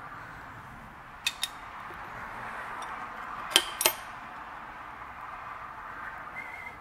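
Light metallic clinks of a machined aluminium wheel being handled and lifted out of its clamped stock, in two pairs about two seconds apart, the second pair the loudest, over a steady background hiss.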